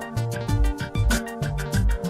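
Background music with a steady, upbeat drum beat and bass line, Latin-flavoured.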